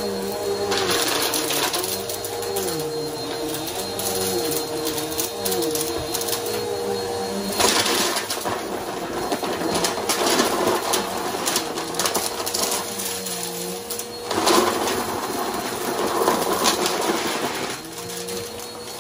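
Bagless upright vacuum cleaner running over carpet, its motor whine wavering in pitch as it is pushed back and forth. Bursts of rattling and clattering come as it sucks up small hard debris (beads, pebbles, grit), about a second in, at about eight seconds and near fifteen seconds.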